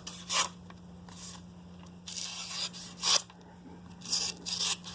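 A knife blade drawn in several short rasping strokes with uneven gaps, at the finishing stage of sharpening.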